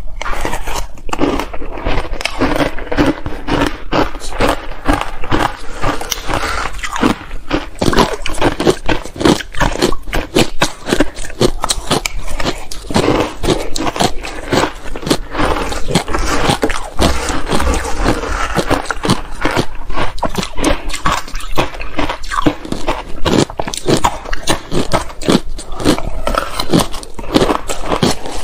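Matcha-coated ice being bitten and crunched close to the microphone, with spoons scraping through the ice; two eating tracks are layered, making a dense, unbroken run of crunches.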